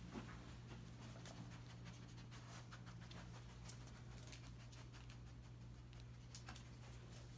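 Faint, irregular clicking and tapping of a bed bug detection dog's claws on a tile floor as it moves about searching, over a steady low hum.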